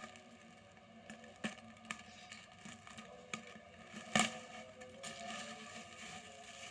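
Packaged clothing being handled during counting: scattered light crinkles and taps, with one louder knock about four seconds in, over a faint steady hum.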